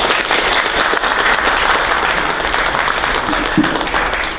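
Audience applauding, steady clapping that starts to thin out near the end.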